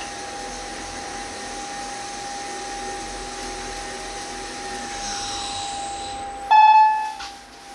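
Station elevator running with a steady whirring hiss and a faint constant tone. About five seconds in, the pitch falls as the car slows to a stop, then a single loud chime rings and fades out.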